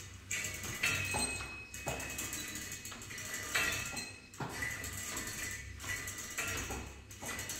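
Metal weight-stack plates of a cable lat pulldown machine clinking and ringing briefly with each pull, about once a second.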